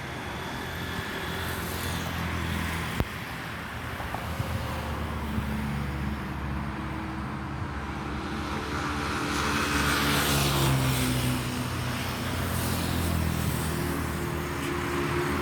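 Boeing 777-300ER's GE90-115B jet engines on final approach: a low drone with several held tones that slowly shift in pitch, growing louder as the plane comes closer. A single sharp click about three seconds in.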